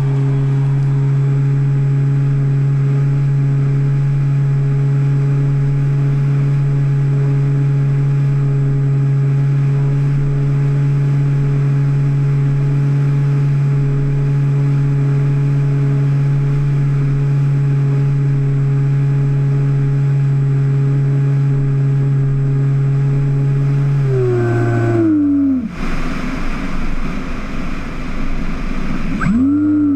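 Electric motor and three-blade pusher propeller of a Finwing Penguin FPV plane droning at a steady pitch, heard from the onboard camera. About 24 seconds in the pitch drops as the throttle comes back and a rushing noise takes over. Near the end the pitch climbs again as power returns.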